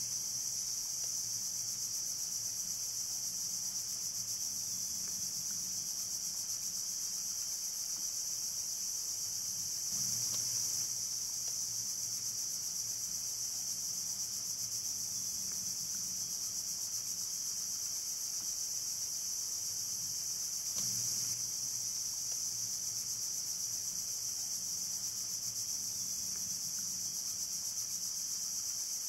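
Steady, high-pitched drone of an insect chorus that swells slightly about ten seconds in and again about twenty seconds in.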